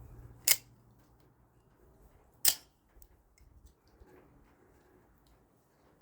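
Zemax out-the-front automatic knife firing and retracting its blade: two sharp snaps about two seconds apart, with faint small clicks between.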